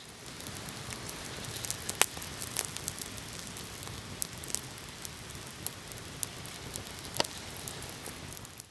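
Small campfire of sticks and twigs burning, a steady crackle with sharp pops scattered through it, the loudest pop about two seconds in and another strong one near seven seconds.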